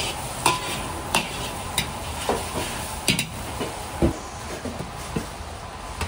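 Metal ladle knocking and scraping against a wok as beaten egg fries in hot oil, over a steady sizzle. The knocks come roughly once or twice a second.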